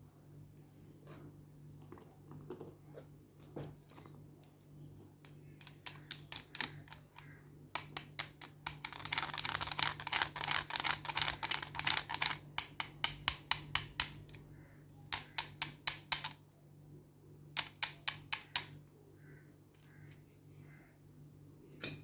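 Quick bursts of sharp tapping clicks, several a second, as of fingers tapping and scratching on a plastic toy and its packaging. The longest, densest burst comes about midway. A faint steady low hum runs underneath.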